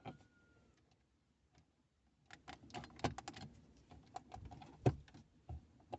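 Irregular plastic clicks and knocks as a car stereo head unit is handled and pushed back into its dashboard slot, with one louder knock about five seconds in.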